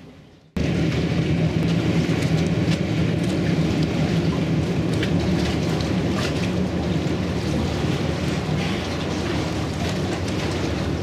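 Diesel engines of a passenger ferry running at the pier head, a steady low drone, starting abruptly about half a second in. A rumbling wash of wind and water noise with scattered crackles lies over it.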